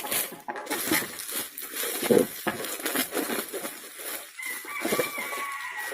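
Packaging being handled and opened: rustling and crinkling of wrapping with sharp taps. A bird calls in the background, a held call in the last second and a half.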